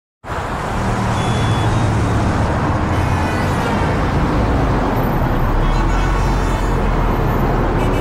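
Steady freeway traffic noise, a deep, even rumble of cars, starting abruptly just after the beginning.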